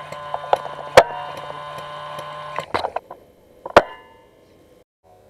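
Airsoft sniper rifle shots: a sharp crack about a second in and another near four seconds in, over a steady hum that stops partway through.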